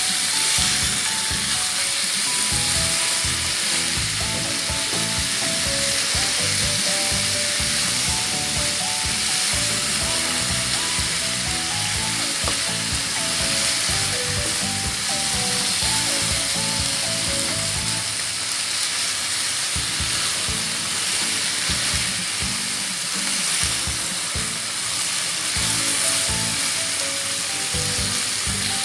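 Pork pieces sizzling as they fry in a wok, with a steady crackling hiss while they are stirred and turned with a plastic spatula.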